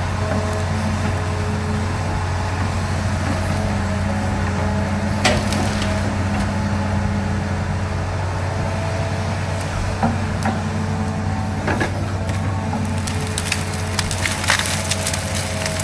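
Excavator's diesel engine running steadily with a hydraulic whine while wood cracks and splinters as trees and brush are broken down. There is a sharp crack about five seconds in, more around ten and twelve seconds, and a cluster of cracks near the end.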